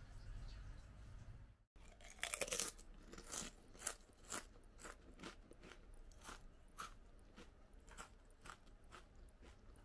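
Yamayoshi Hokkaido Rich Butter potato chips being bitten and chewed close to the microphone. A loud crunch comes about two seconds in, then a run of crisp crunches about two a second, growing fainter.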